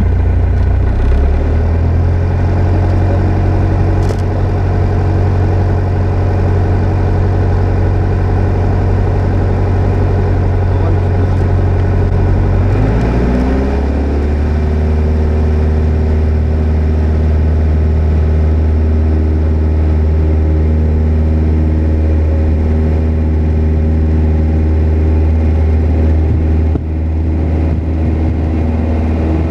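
Single-engine light aircraft's piston engine and propeller running at low power, heard from inside the cockpit. About thirteen seconds in, it rises in pitch as the throttle opens, then holds steady at higher revs.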